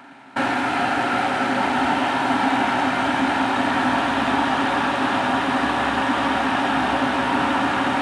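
Kyowa KW1366 2000-watt stainless-steel electric kettle heating water at the boil, a loud steady hiss of boiling water that starts abruptly about a third of a second in. The element is still on and the bimetal switch has not yet tripped.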